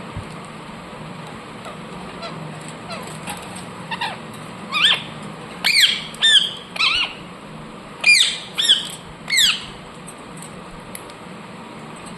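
Indian ringneck parakeet giving a run of about seven loud, harsh calls, each falling in pitch, in the middle stretch, after a few faint chirps.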